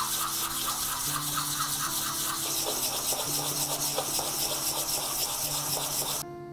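End grain of an octagonal walnut block being sanded by hand on a sheet of sandpaper laid flat on a workbench, in quick, even back-and-forth strokes. The scratching stops abruptly near the end.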